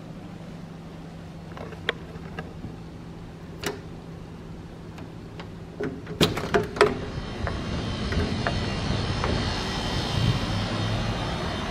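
Footsteps over a steady low hum, then a quick run of sharp clicks about six seconds in as a door's deadbolt locks are turned and the door is opened. After that comes a steady outdoor background hiss.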